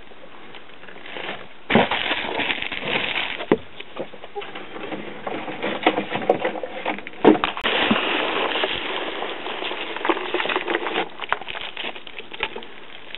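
Plastic packing bags, bubble wrap and foam packing peanuts rustling and crinkling as hands dig through a cardboard shipping box, with scattered sharp crackles and clicks. It starts quietly and picks up about two seconds in.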